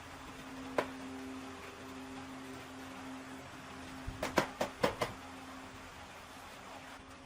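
One sharp knock about a second in, then a quick run of five or six knocks and clicks about four seconds in, over a faint steady hum.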